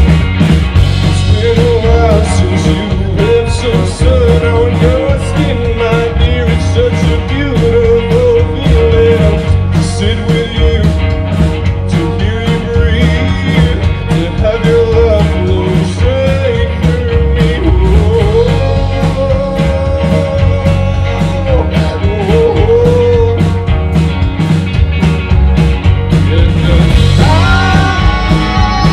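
Live rock band playing loud with electric guitars, bass guitar and a steady drum beat, the lead singer singing over it.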